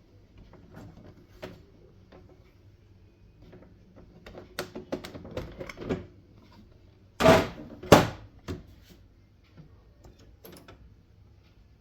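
Plastic clicks and knocks from the HP LaserJet M1136 printer being handled, with two loud thumps about seven and eight seconds in.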